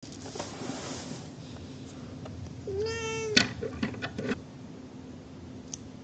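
A domestic cat meows once, a single drawn-out meow about half a second long, nearly three seconds in. Right after it comes a sharp click, the loudest sound, then a few softer clicks.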